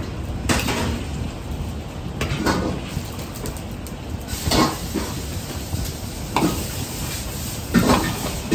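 Long metal ladle scraping and knocking against a seasoned iron wok while beaten eggs sizzle in hot oil. About five strokes come a couple of seconds apart.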